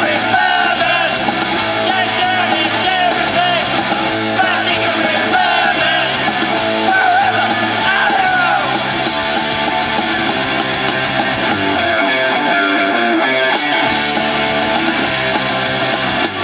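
Live punk rock band playing: sung lead vocals over electric guitars, bass and drums. The singing stops about nine seconds in while the band plays on, the bass dropping out for a moment near the end.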